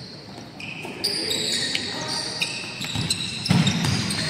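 Basketball play on a hardwood gym floor: sneakers squeaking sharply over and over as players cut and stop, with a ball bouncing and feet thudding. The action grows louder near the end.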